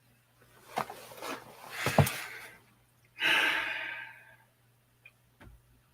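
A person breathing close to the microphone: a drawn-in breath with a couple of small clicks, then a sigh lasting about a second that starts abruptly and trails off.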